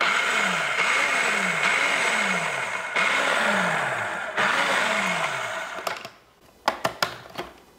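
Electric food processor running for about six seconds, spinning dry flour, salt and sugar together, then cutting off abruptly. A few short clicks follow near the end.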